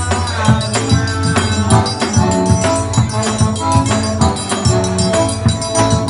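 Instrumental passage of a live Brazilian trio: a piano accordion plays the melody in held notes over a steady beat on a zabumba bass drum, with light jingling percussion.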